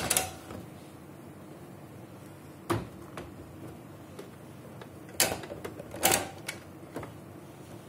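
Hard plastic clicks and knocks from the parts of a Samsung Xpress C410W colour laser printer's open front cover and toner cartridge bay being handled: about five sharp clicks, spread unevenly, the loudest two about five and six seconds in, over a faint steady hum.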